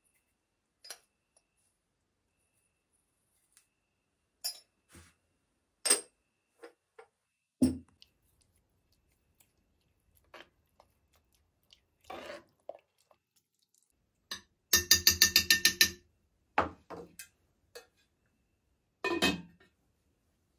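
Dishes and cutlery clinking and knocking: scattered single clinks and knocks, with a quick rattling run of rapid strikes a little past the middle that is the loudest part.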